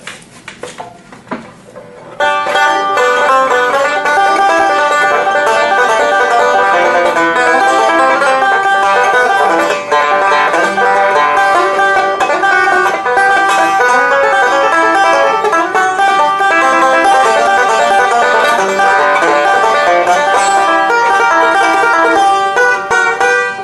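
Solo banjo playing a short tune, a quick run of picked notes; it starts about two seconds in after a few faint handling clicks and stops just before the end.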